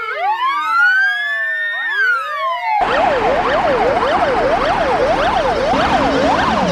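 Fire engine sirens: several sirens sweeping slowly up and down together, then, about three seconds in, an abrupt change to a fast yelping siren of about three sweeps a second over steady background noise.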